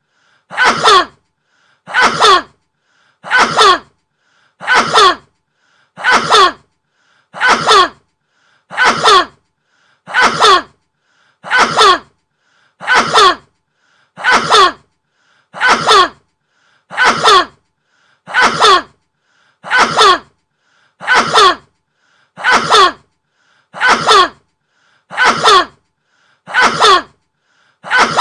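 A man sneezing over and over, one loud sneeze about every 1.4 seconds. Each sneeze has the same shape and falls in pitch, like a single sneeze repeated in a loop.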